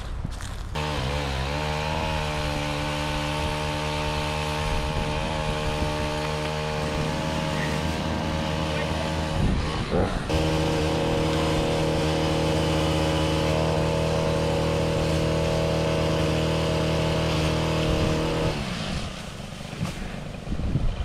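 Gas-powered pole saw revving up about a second in and running at high speed as it cuts into a tree, with a brief dip near the middle, then dropping off near the end.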